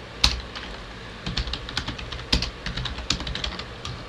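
Typing on a computer keyboard: one loud keystroke, a pause of about a second, then a quick irregular run of key clicks.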